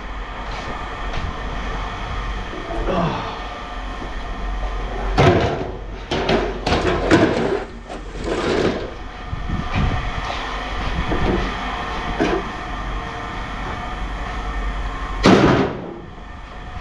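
Machinery running with a steady drone, broken by several loud clanks or bangs: one about five seconds in, a cluster soon after, and another near the end.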